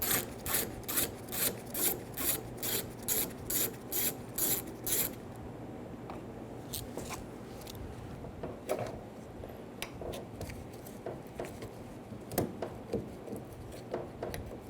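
Ratchet wrench clicking in short, even bursts, about two or three a second, as the 8mm bolt securing the door handle is backed out. About five seconds in the ratcheting stops, leaving faint scattered clicks and handling noises.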